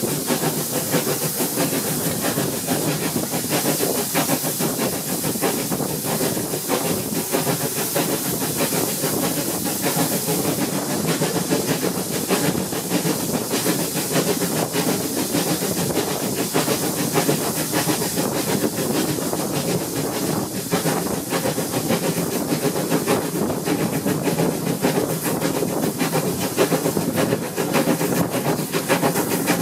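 Steam locomotive hauling its train at speed: a steady hiss of steam with the clatter of wheels on the rails, heard from a coach window just behind the engine.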